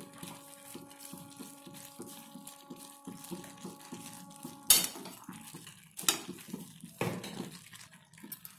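Steel spoon stirring and scraping minced chicken with peas in a metal pan while it is fried down, with three sharp knocks of the spoon against the pan about halfway through and later, the first the loudest.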